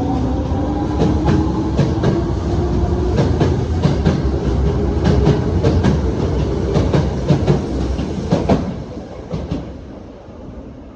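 Osaka Metro 22 series subway train accelerating away, its Hitachi GTO inverter whine rising slowly in pitch while the wheels clack over rail joints in quick irregular clicks. The sound fades away after about eight and a half seconds.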